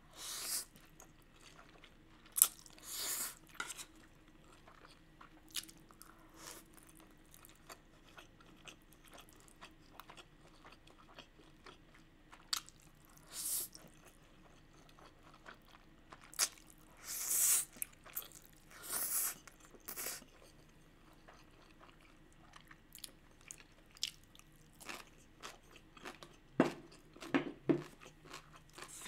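Close-miked eating of spicy instant fire noodles: several loud slurps of about a second each, between them soft chewing and mouth clicks.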